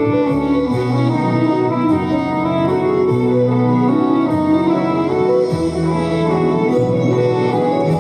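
Instrumental passage of a cabaret song, sustained instrumental chords changing every second or two, with no singing.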